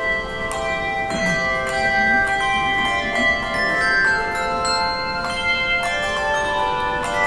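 Handbells playing a hymn prelude: a melody of struck notes that ring on and overlap one another.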